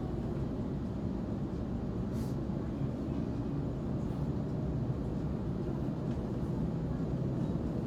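Steady low rumble of a moving suburban electric train, heard from inside the carriage.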